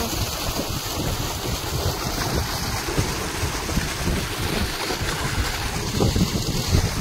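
Irrigation water gushing from the open end of a lay-flat pipe into a muddy field channel, a steady rush, with wind buffeting the microphone.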